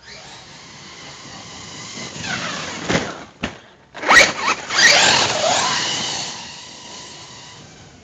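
Brushless electric motor and drivetrain of a Hobao Hyper ST Pro RC truck whining at speed as it drives across grass. It builds as the truck approaches, is loudest as it passes close about four seconds in, then the whine falls in pitch and fades as it drives away.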